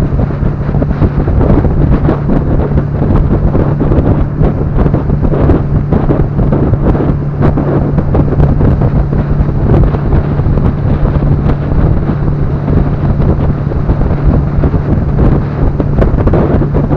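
Boat engine running steadily at one pitch, under heavy wind buffeting the microphone.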